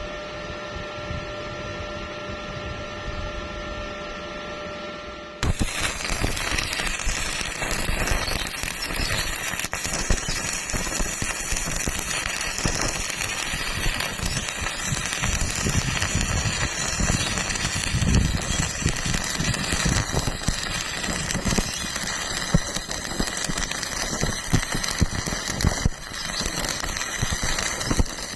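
Electric arc welding: the arc crackles and sizzles with dense small pops, starting suddenly about five seconds in after a steady hum with a few held tones.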